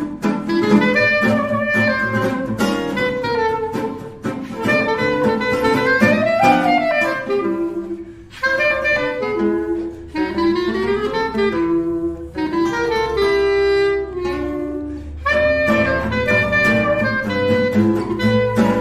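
Background jazz music with a saxophone melody over a steady beat.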